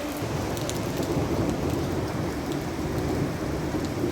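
Heavy rain pouring steadily, with a low rumble underneath that grows stronger from the start and scattered sharp drop ticks.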